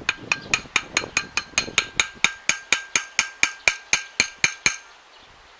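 Rapid, even tapping of a steel spanner on a tractor's gear-shift mechanism: about twenty ringing metallic taps, roughly four to five a second, that stop about a second before the end. The tapping is meant to free a small ball inside that won't move, in a channel the men suspect is clogged.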